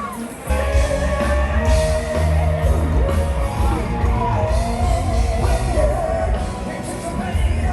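Rock music with a singer over a heavy, steady bass beat, starting abruptly about half a second in.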